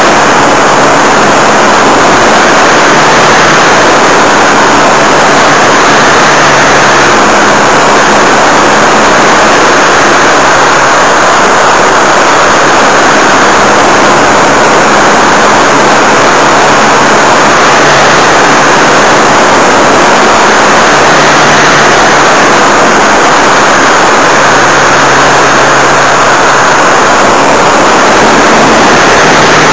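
Model airplane's motor and propeller running in flight, heard from a camera mounted on the plane: a loud, steady rushing noise with a low hum underneath that shifts slightly in pitch.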